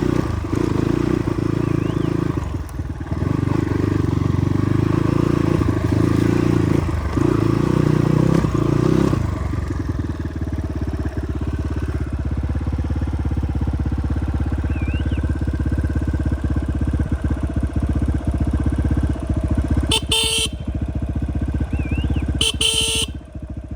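Motorcycle engine running on a rough road, working harder for the first nine seconds or so and then running more evenly. Another vehicle's horn sounds twice near the end.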